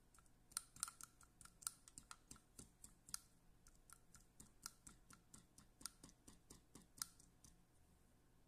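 An irregular run of small, sharp clicks and taps, about three a second, from fly-tying tools being handled, stopping about a second before the end.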